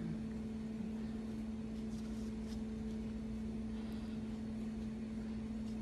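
A steady low hum, one even tone, over faint room noise, with a few faint ticks.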